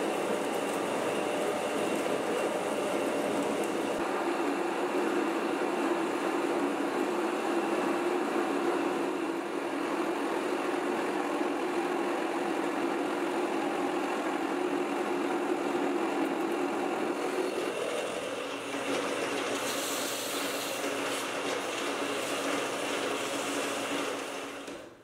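Metal lathe running steadily while a brazed-tip boring bar cuts the inside of the spinning metal workpiece. Near the end abrasive paper is held in the turning bore, adding a hiss, and the sound drops away just before the end.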